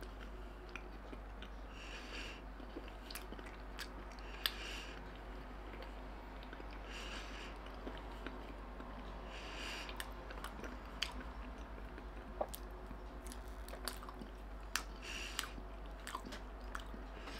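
Close-up chewing of a mouthful of chicken wrap with the mouth closed: soft wet smacks and small clicks, with a soft puff of noise every two or three seconds.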